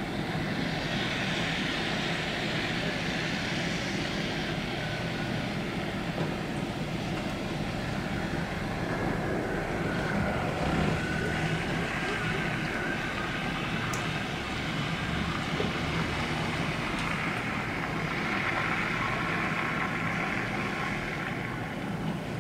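Steady hum of distant road traffic. It swells near the start and again near the end as vehicles pass.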